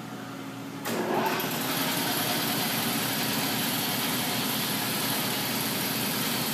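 A motor or engine starts abruptly about a second in and runs steadily, with a brief rising whine as it comes up to speed.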